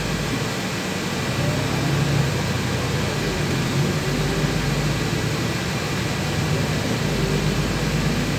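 Cabin noise inside a LiAZ 6213.21 articulated city bus under way: a steady low engine hum with road noise, and a faint whine that rises a few times.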